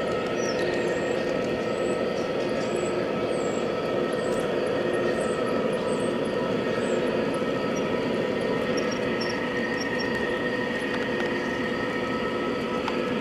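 G-scale Aristo Dash 9 model diesel locomotive running with its QSI onboard sound system playing a steady diesel engine sound, over the rumble of the hopper cars' wheels on the track.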